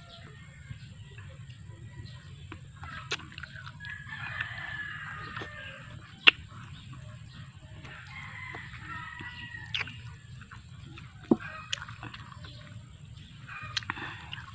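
Rooster crowing, three long crows a few seconds apart, with a few sharp clicks in between.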